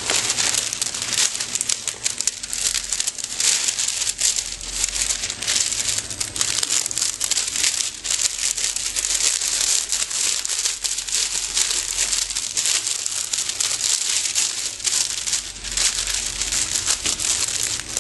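PVC shrink film tube crinkling and crackling continuously as it is handled and a book is slid into it.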